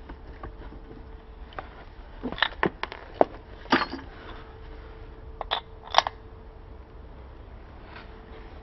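A run of sharp clicks and knocks, with two louder ones near the middle, over a faint steady hum: metal tools and parts being handled and set down.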